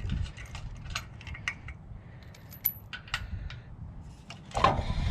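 Light metallic clinks and rattles of hand tools and hardware being handled, with a louder clatter about four and a half seconds in.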